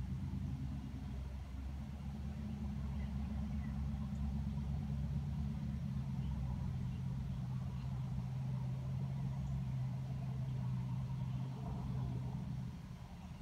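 Air-conditioner condenser unit humming steadily, a low hum with a few overtones, while its condenser fan blade stands still.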